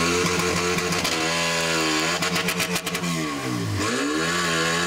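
Petrol engine of a portable fire pump running hard under load, its pitch sagging, then dropping steeply and climbing back as the revs are eased and opened up again. A quick run of clicks comes about two and a half seconds in.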